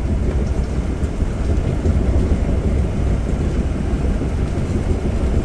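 Steady low rumble of engine and road noise inside the cab of a Class A motorhome on a Ford F53 chassis cruising down the road.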